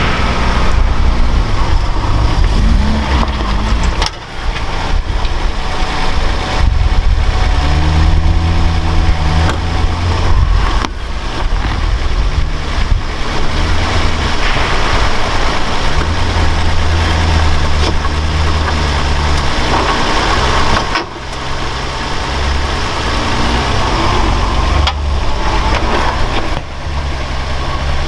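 Off-road truck engine revving hard and easing off over and over as the vehicle works through mud, its pitch rising and falling. The sound drops out briefly three times, about 4, 21 and 26 seconds in.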